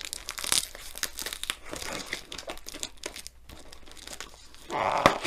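Scissors cutting at yellow plastic packing tape on a cardboard box, with the plastic crinkling and tearing in a run of short snaps and crackles; a louder rip comes near the end as the tape gives way.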